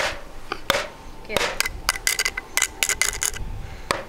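Hands-held hammers striking a large block of ice over and over: a quick, uneven series of sharp knocks.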